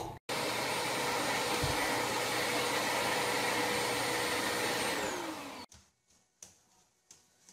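Vacuum cleaner motor running steadily, then switched off about five seconds in, its whine sliding down in pitch as it winds down. A few faint taps follow.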